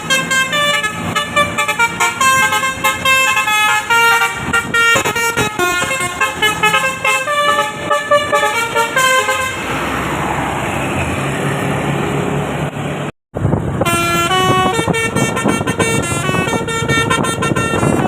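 Indonesian tour bus's 'telolet basuri' multi-tone musical horn playing a fast tune of short, stepped notes. A rushing noise swells in the middle. After a brief cut the horn tune starts again.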